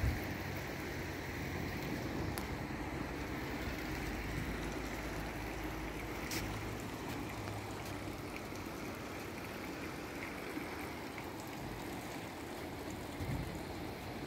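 Steady rush of a wide river flowing over its gravel bed, heard from the hillside above, with a couple of faint clicks.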